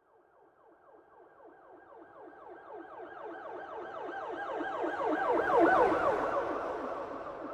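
Police car siren sounding a fast yelp, its pitch sweeping up and down about six times a second, over a low vehicle rumble. It grows steadily louder, is loudest a little past halfway, then fades as the car drives past.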